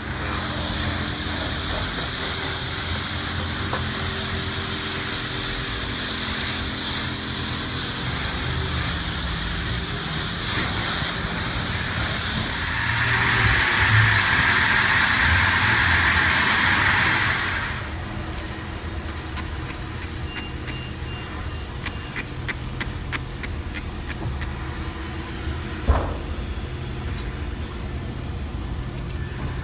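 Water spray rinsing a car at a car wash: a steady hiss that grows louder about thirteen seconds in and cuts off suddenly about five seconds later. After it, a quieter background with a run of light clicks and one knock near the end.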